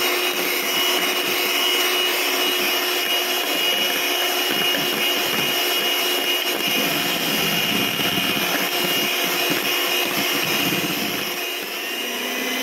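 Electric hand mixer running steadily, its twin beaters whisking cake batter in a metal bowl, with a steady motor whine. The pitch drops slightly near the end.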